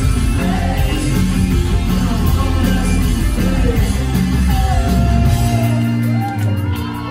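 Live rock band playing loud, with electric guitars, drums and a singer. About five and a half seconds in the heavy low end drops out, leaving held notes ringing.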